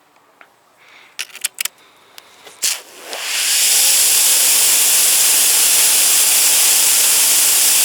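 A few clicks and knocks, then about three seconds in a Karcher K2 Battery cordless pressure washer starts spraying through a 2.5 orifice nozzle: a loud, steady hiss of the water jet with a low hum under it.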